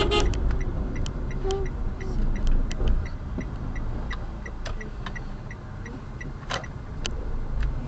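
Car turn-signal indicator ticking steadily at about three clicks a second over a low engine and road rumble inside the cabin, with a couple of sharper clicks near the end.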